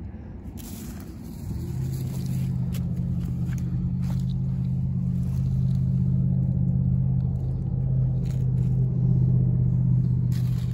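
A low, steady engine hum that swells in about a second and a half in and holds, growing a little louder, with a few scattered clicks of footsteps on shore stones.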